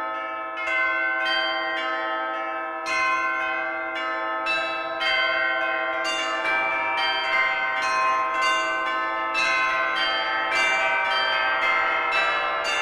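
Church bells ringing a rapid peal, with strike after strike overlapping as each bell rings on. The strikes come thicker about three seconds in.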